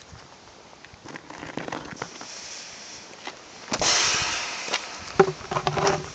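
Crackling handling noise from a handheld camera as it swings about, with scattered clicks and a louder rushing burst lasting about a second, roughly four seconds in.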